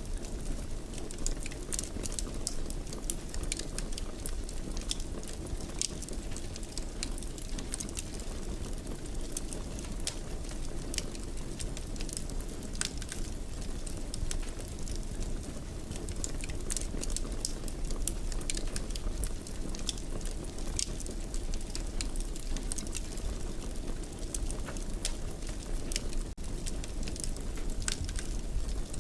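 Wood fire burning in a fireplace: a steady low rumble of flames with frequent small, sharp crackles and pops scattered throughout.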